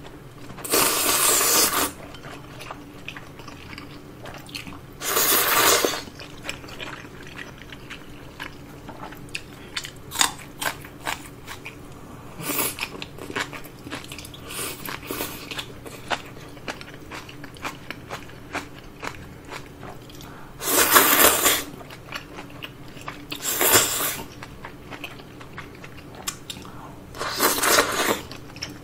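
Close-miked eating: udon noodles slurped in loud, noisy bursts of about a second, five times, the last one broth being sipped from the bowl. Between the slurps, chewing with many small crisp clicks and crunches.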